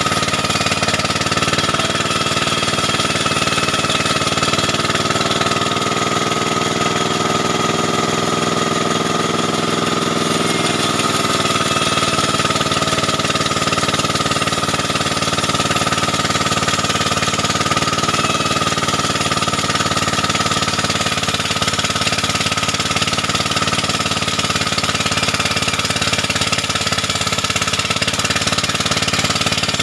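Large vertical band saw running steadily while a wooden plank is fed through the blade: a loud, continuous machine noise with a steady high whine.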